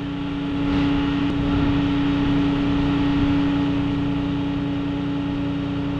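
Tow truck's engine running at idle: a steady hum with one constant tone over a low rumble.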